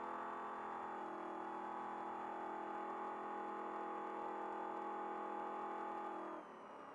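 Trophy Truck's race engine heard from inside the cab, pulling hard at high, steady revs as the truck accelerates past 90 mph. About six and a half seconds in the driver lifts off the throttle and the engine note drops away.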